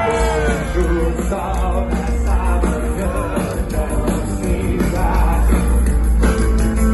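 Live rock band playing a full-band passage with drums and bass; a long held note slides down and fades about half a second in.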